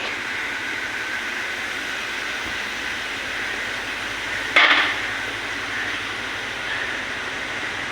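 A steady, hissing mechanical whir, with one sharp metallic clank about four and a half seconds in.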